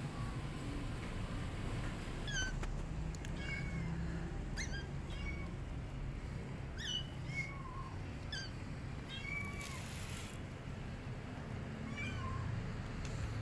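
Kitten meowing repeatedly: a string of short, high-pitched mews, about one a second, over a low steady rumble.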